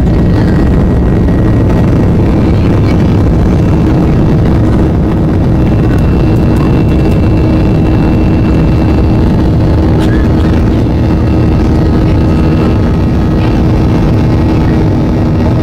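Boeing 737-800's CFM56-7B turbofan engines at takeoff thrust, heard from inside the cabin: a loud, steady engine and airflow noise as the jet leaves the runway and climbs away. A steady hum joins in about five seconds in.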